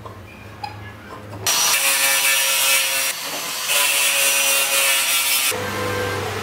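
Stanley angle grinder with a sanding disc running against the edge of a laminated chipboard panel, in two loud passes of about a second and a half each with a short break between. The first pass starts about a second and a half in.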